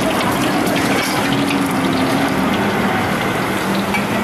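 Steady rushing roar of a gas wok burner with a low hum underneath, under a wok being stirred with a metal spatula.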